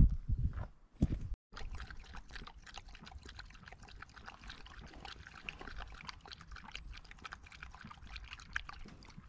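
A dog lapping water from a bowl: a steady run of small wet clicks. A few low knocks of handling noise come right at the start.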